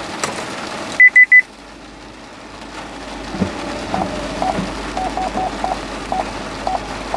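Three short, high-pitched electronic beeps in quick succession. After them comes a quieter run of short tonal ticks at an uneven pace, about two a second.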